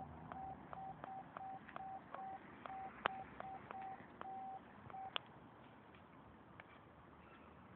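Faint short electronic beeps, all at one pitch and each starting with a click, repeating at an uneven two or three a second and stopping about five seconds in, with a sharper click about three seconds in.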